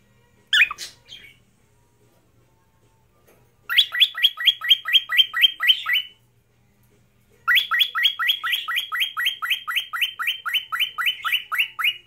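Cockatiel whistling: a short chirp about half a second in, then two runs of quick repeated whistled notes, about five a second, the first about two seconds long and the second nearly five.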